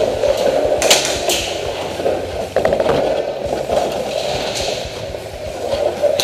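Footsteps and gear rattling as an airsoft player moves across a concrete floor, with a few sharp clicks and scrapes.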